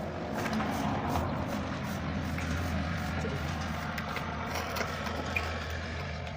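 A motor or engine running steadily with a low hum and a rushing noise over it.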